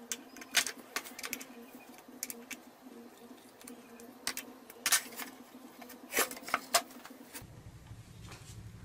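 Light irregular clicks and taps of a small metal pin handled in a predrilled hole in a plywood board, over a faint steady hum. Near the end the hum gives way to a low rumble.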